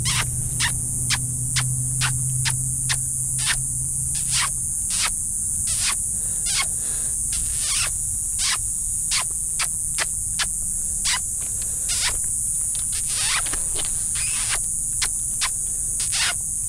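Insect buzzing: a steady high-pitched drone, broken by sharp clicks about twice a second. A faint low hum runs under it for the first four seconds or so.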